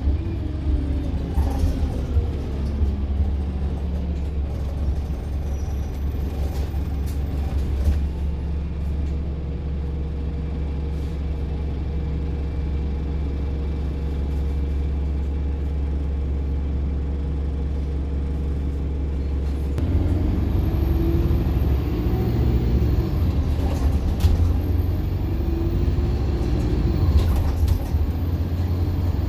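Bus engine heard from on board: it runs down as the bus slows, idles steadily for about a quarter of a minute, then grows louder about two-thirds of the way through, its pitch rising and falling as the bus pulls away, with a faint high whistle over it.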